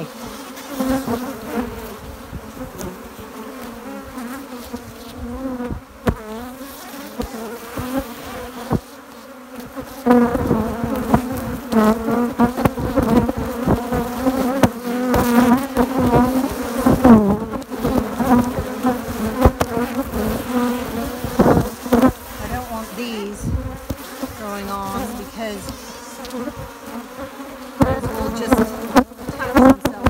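Honeybees swarming out of an open hive, a dense steady buzz with single bees flying close past and their pitch rising and falling. The bees are very cross at having their hive opened. The buzz grows louder about ten seconds in.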